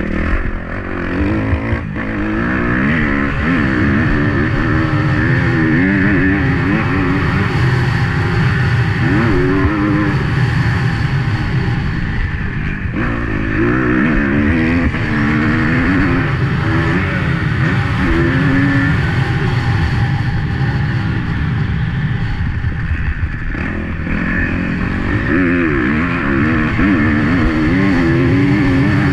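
Single-cylinder four-stroke dirt bike engine at race pace, its pitch repeatedly climbing under throttle and dropping off as the rider shifts and backs off for corners and jumps, heard from the rider's onboard camera.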